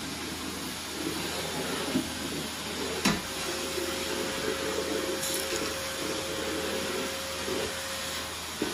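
Canister vacuum cleaner running steadily: a continuous rush of air with a steady motor whine. Two brief knocks about two and three seconds in, the second the louder.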